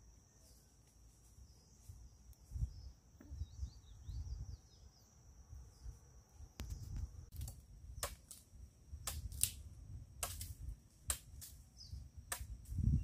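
A bolo hacking into ground and brush: a dozen or so sharp knocks, one or two a second, starting about halfway through. Before the knocks a steady high insect trill sounds, over a low rumble of wind on the microphone.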